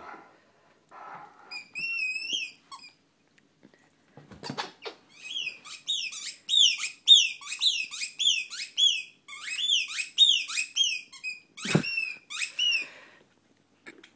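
A squeaky toy ball being chewed by a Greater Swiss Mountain Dog, giving short high-pitched squeaks in quick runs of two or three a second, with a couple of dull thuds among them.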